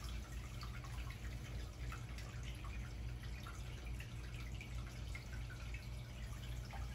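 Aquarium filtration running: a steady low hum with a constant, irregular patter of small bubbles and trickling water.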